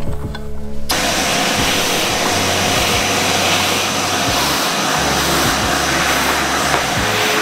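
Vacuum cleaner running steadily, its hose nozzle held against and drawn along the edges of a stack of trimmed paper notebooks; the suction noise starts about a second in.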